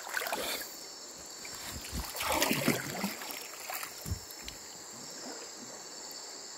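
River water splashing and sloshing around a wader's hands, in bursts at the start and again about two seconds in, with a few dull knocks near the four-second mark. A steady high chirring of insects runs underneath.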